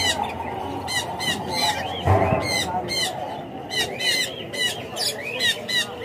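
Caged parrots chirping: short shrill chirps repeated about three times a second over a low background murmur, with a single low thump about two seconds in.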